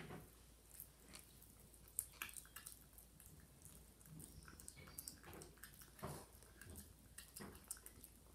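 Faint chewing: a toy poodle puppy gnawing a raw chicken wing, making scattered small wet clicks and smacks.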